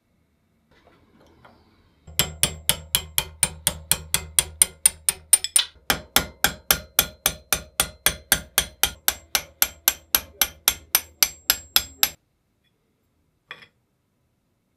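Small hammer striking the old hand drill's steel crank shaft and sprocket, rapid even blows at about four to five a second for about ten seconds, knocking the crank sprocket free of its shaft. A single light metal clink comes near the end.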